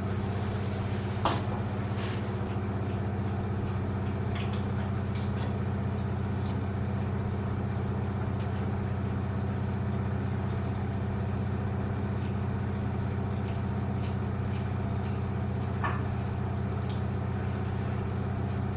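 Small electric motor humming steadily, with a few light clicks and taps over it; the hum cuts off just as the sound ends.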